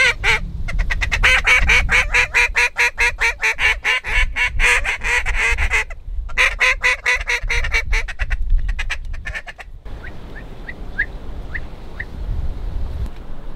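A hunter's duck call blown in a long, fast string of short quacking notes. It breaks off briefly near six seconds, then resumes and thins out about ten seconds in. A few faint short chirps follow near the end.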